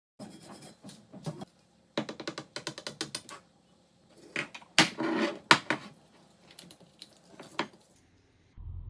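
Irregular clicking and rattling of small hard parts being handled, with quick runs of clicks and a few louder knocks. A low steady hum comes in near the end.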